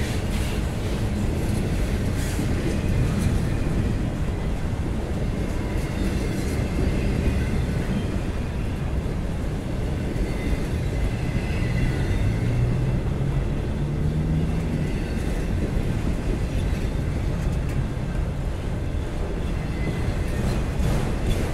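Freight train of empty autorack cars rolling past: steady rumble of steel wheels on rail, with a few sharp clicks near the start and end. A low tone rises briefly about twelve seconds in.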